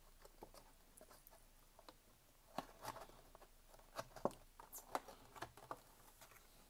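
A cardboard trading-card booster box being handled and its lid opened: faint, scattered taps and light rustles, coming more often and a little louder from about two and a half seconds in.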